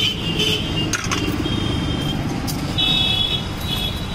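Street traffic running close by, with a series of short high-pitched horn beeps through the middle and near the end.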